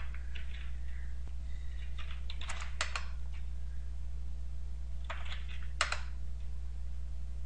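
Computer keyboard keys being typed in two short runs, about two and a half seconds in and again about five seconds in, over a steady low hum.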